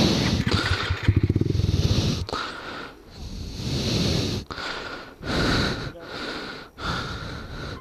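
A rider breathing hard into a helmet-mounted microphone, in and out about once a second. In the first two seconds there is also a low rumble.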